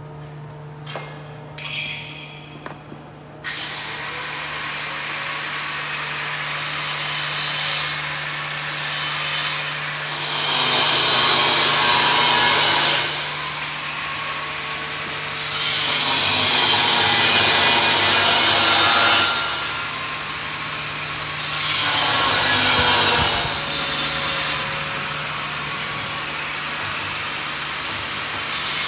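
A camshaft copying machine running, with a steady motor hum. Its cutting tool works the piece in several loud, rasping passes of a few seconds each.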